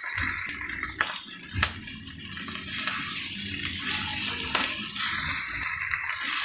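Keema, onions and ginger-garlic paste sizzling as they fry in a non-stick wok, stirred and scraped with a spatula, with a few sharp knocks of the spatula against the pan.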